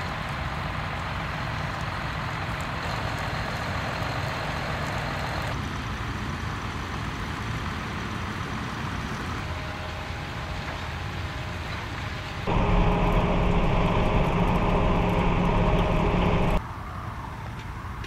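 Tractor engines running under load while pulling reversible ploughs through stubble, heard in several short cuts. A steady drone grows louder, with a clear engine hum, for about four seconds in the second half, then drops back near the end.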